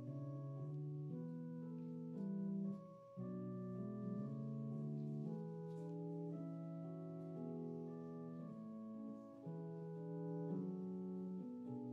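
Slow keyboard instrumental music: held chords that change every second or so, with a brief drop in level about three seconds in.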